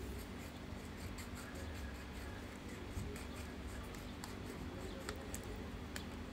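Small scissors snipping around a piece of paper, a run of faint, irregular snips and paper rustling.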